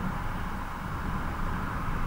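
Steady rushing ride noise from an Emmo Zone S electric motorcycle moving at road speed, with a low, unsteady rumble under it and no engine sound.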